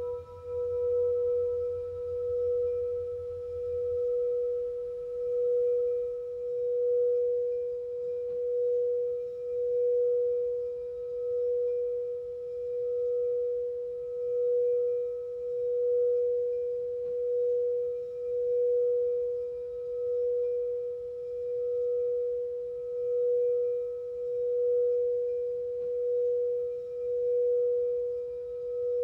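Singing bowl sounding one steady, held note, swelling and fading in a slow pulse about every two seconds.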